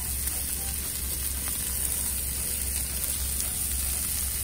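Pieces of chicken thigh sizzling steadily in oil in a non-stick frying pan, over a steady low hum.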